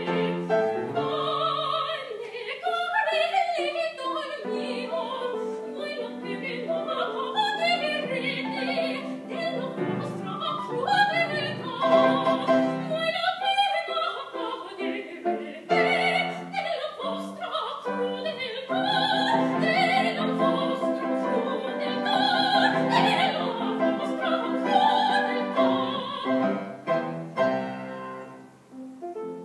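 A woman singing opera in full voice with a wide vibrato, accompanied by piano.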